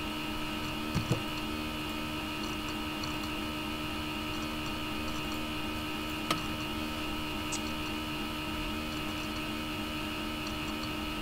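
Steady electrical hum from the recording setup, with a few sharp mouse clicks: two close together about a second in and one about six seconds in.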